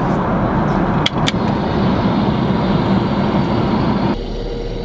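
Steady jet airliner cabin noise, a loud rushing with a low hum, broken by two sharp clicks about a second in. Near the end the rushing abruptly drops to a fainter hum.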